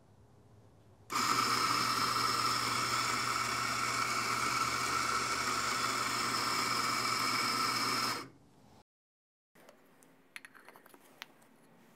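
Eureka Mignon Libra espresso grinder with 55 mm burrs grinding an espresso dose into a portafilter: a steady motor whine and burr grind starts about a second in and runs for about seven seconds. It then stops by itself once its built-in load cell reads the 16 g target. A few light clicks follow.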